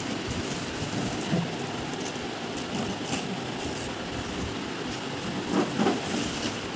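Cardboard boxes scraping and rustling against each other and the shipping carton as they are shifted by hand, with a couple of louder bumps about five and a half seconds in, over a steady background hiss.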